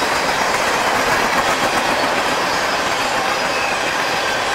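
Loaded tank cars of a long freight train rolling past on the rails: a steady, even noise of steel wheels running over the track.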